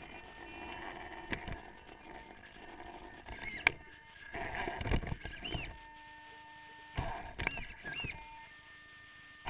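Onboard sound of an electric RC rock crawler: short rising-and-falling whines from its motors and gears as it is throttled in short bursts, with clicks and a sharp knock of tyres and chassis on rock.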